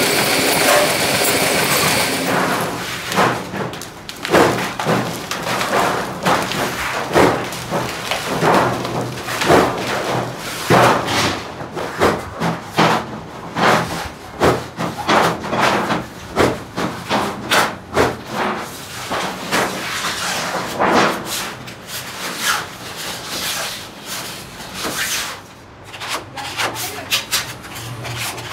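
Sheet-metal workshop sounds: a steady machine noise for about the first two seconds, then irregular clanks and knocks of sheet metal being handled, with metal scraping near the end as a circle is scribed on a steel sheet.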